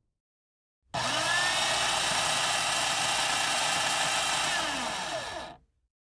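Electric coffee grinder running in one burst of about four and a half seconds, starting about a second in: the motor rises in pitch as it spins up, runs steadily and loudly, then falls in pitch as it spins down and stops.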